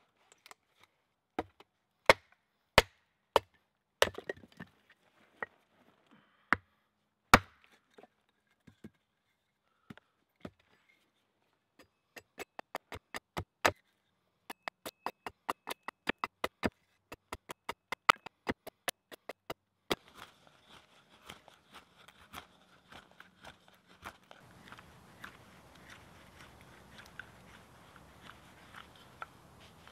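Small axe chopping wood on a stump chopping block: single sharp blows a second or so apart as a log is split, then a quick run of lighter chops about three a second as a split stick is shaped. In the last part, faint clicking and scraping of wood being carved by hand.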